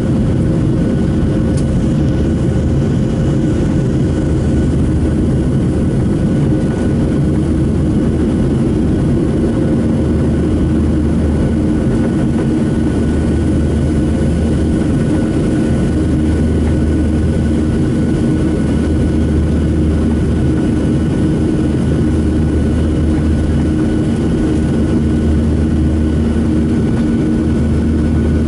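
Boeing 737-700's CFM56 jet engines running steadily, heard from inside the passenger cabin: a loud, even rumble with a steady whine and a low drone that swells and eases every few seconds.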